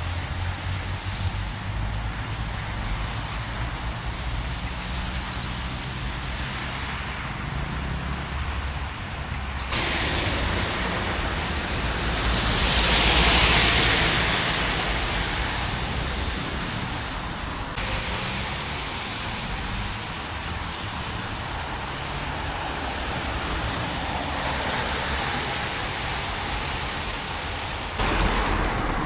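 Road traffic going by on a town street, with a steady low rumble. About midway one vehicle passes close, its tyre hiss swelling and then fading away.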